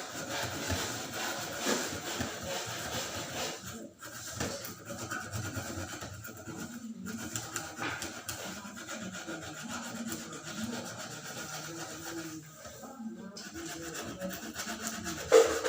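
Hand sanding with sandpaper on a hard surface: steady rubbing, rasping strokes.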